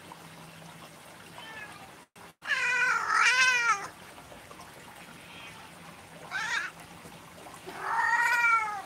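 Cat meowing three times: a long, loud meow about two and a half seconds in, a short one a little past six seconds, and another about a second long near the end.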